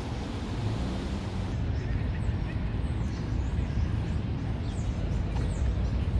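Outdoor city street ambience: a steady low rumble of traffic, with small birds chirping now and then from about a second and a half in.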